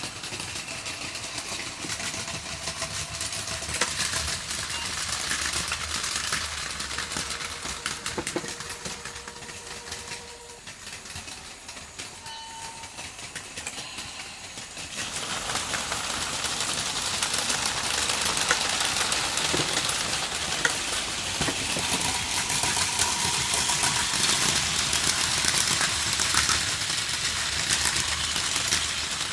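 Battery-powered Plarail Advance toy Shinkansen trains running on plastic track: a steady whir of small motors with wheels rattling over the rail joints, getting louder about halfway through.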